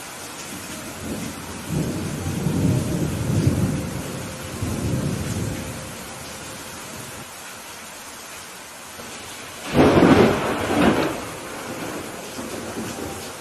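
Steady rain falling, with a low rumble of thunder rolling for several seconds early on. About two-thirds of the way through comes a sudden, louder crack of thunder that rumbles off over a second or two.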